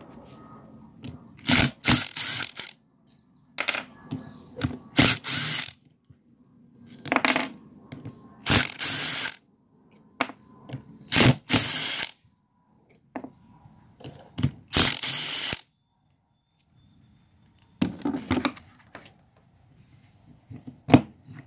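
Cordless power driver with a socket running in short, loud bursts of a second or less, about nine times, backing out the cover bolts of a failed engine oil pump.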